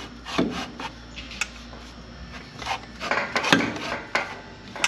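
Exhaust pipe being worked into a muffler during a test fit: metal rubbing and scraping, with several sharp knocks and a denser run of scrapes and clanks about three seconds in.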